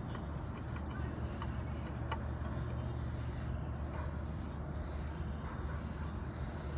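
A steady low drone with a few faint, light clicks.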